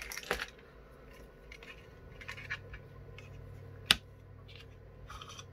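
Hands and small pliers working at a gadget's plastic-cased circuit board: faint scratching and light clicks, with one sharp click about four seconds in. A faint low hum runs underneath from about two seconds in.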